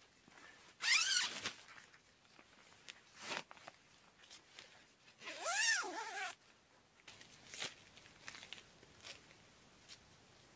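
Wild red fox screaming: two loud, high calls whose pitch rises and then falls, one about a second in and a longer one about five seconds in, with a few fainter short calls between and after.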